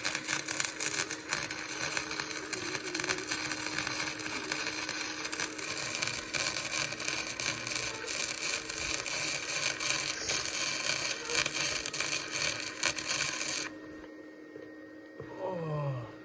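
Electric arc welding on steel: a dense, steady crackle and sizzle of the arc over a low hum, which cuts off suddenly near the end when the arc is broken.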